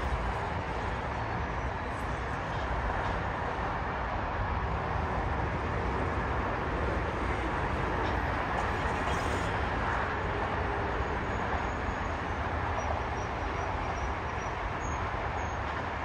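Steady outdoor background noise: a low rumble with a hiss over it, with a few faint high chirps near the end.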